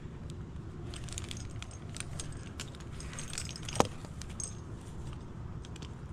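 Tree climber's gear clinking and rattling in light, scattered clicks, with one sharp click nearly four seconds in.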